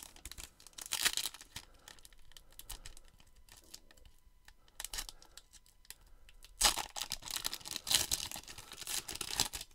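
2021 Topps Gallery trading card pack wrapper being torn open and crinkled by hand. There is a burst of tearing about a second in, a short one near five seconds, and a longer stretch of ripping and crinkling over the last three seconds.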